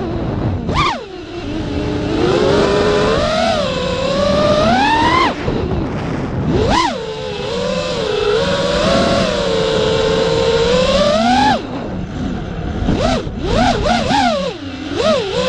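Electric motor of a radio-controlled vehicle whining, its pitch rising and falling as the throttle is worked. It drops off briefly a few times as the throttle is let off.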